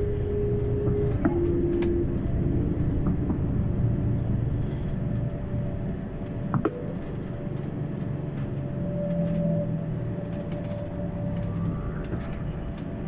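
Tour bus running, a steady low engine and road rumble heard from inside the cabin.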